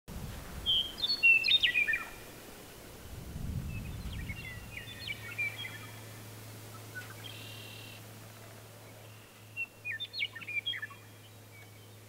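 Small birds chirping in four short groups of high, quick calls, with a faint low rumble under the first few seconds.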